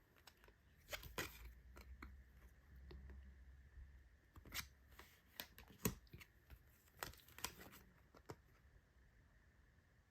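Faint handling of photocards and their packaging: scattered light clicks, taps and rustles as the cards are flipped and sorted.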